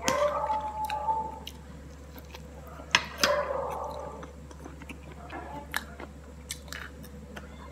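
Close-miked mouth sounds of a person eating soup vegetables from a spoon: a loud slurp in the first second, a sharp click about three seconds in followed by an appreciative hum, then soft chewing with scattered small clicks.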